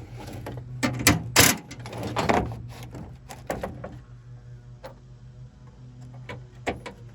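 Knocks, clicks and clatter from working on a pickup tailgate, moving it and handling its parts and tools, loudest about a second and a half in and sparser after that, over a steady low hum.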